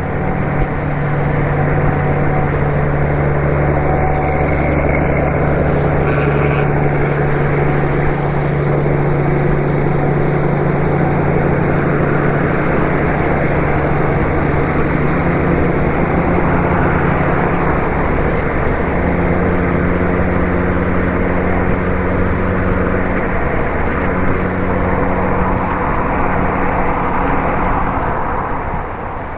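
Diesel truck engine running steadily at motorway cruising speed, a low drone that shifts slightly in pitch a few times, over road and wind noise.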